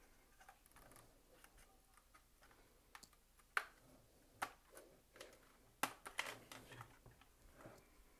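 A few sharp, scattered plastic clicks as a plastic pry tool works the clip tabs of a Nespresso Vertuo coffee machine's plastic base cover, the cover unclipping from the body. The sharpest clicks come about three and a half, four and a half and six seconds in.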